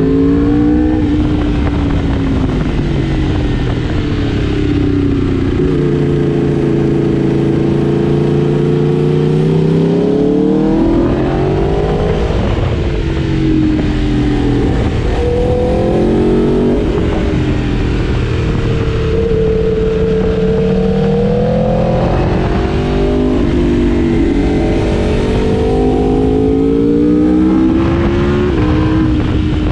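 Four-cylinder superbike engine under way at speed. The revs hold steady for stretches, climb, and drop suddenly several times, as with throttle changes and gear shifts.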